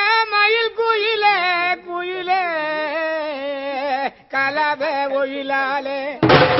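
A high voice singing a slow, wavering melody with long held notes. Drums come in near the end.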